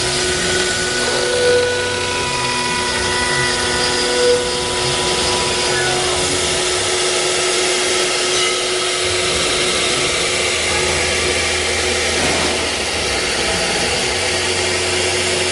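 CNC router running steadily with its high-speed spindle turning: an even machine whine made of several steady tones over a wide mechanical noise.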